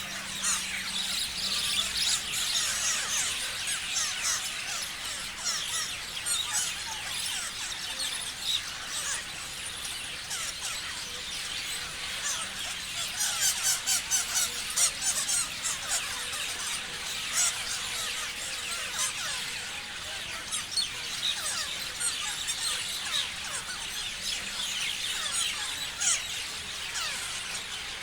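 A flock of parrots chirping together: a dense, continuous chorus of many quick, high, falling calls overlapping, busiest about halfway through.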